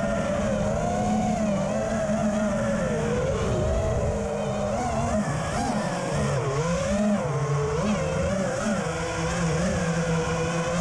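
FPV racing quadcopter's brushless motors and Cyclone 5040 props, heard from the onboard camera, whining continuously in flight. The pitch swells and dips with throttle changes, over a low buzz and rush of prop wash.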